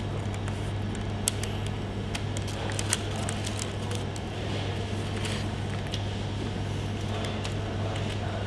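Steady low mechanical hum, with a few faint clicks and soft squishy sounds of food being handled.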